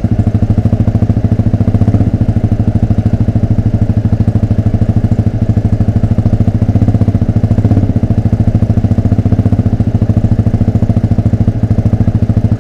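Motorcycle with an open exhaust running at low, steady revs while riding slowly in traffic: a loud, rapid, even exhaust pulse. The revs lift slightly a few times.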